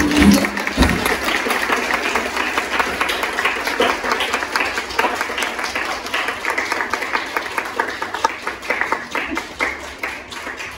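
A small audience applauding, many separate hand claps that slowly die away toward the end.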